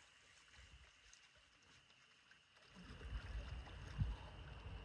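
Faint water sloshing, with a low rumble setting in about three seconds in and a dull bump about a second later.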